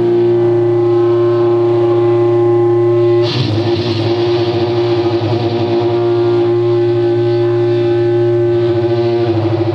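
Live band playing: heavily distorted electric guitar holding a loud, sustained droning chord, struck again about three seconds in and ringing on.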